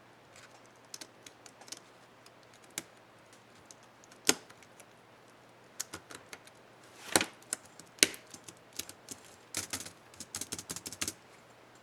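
Plastic keys of an HP DV4-1000 laptop keyboard clicking as they are pressed and snapped into place: scattered single clicks, then a quick run of presses near the end.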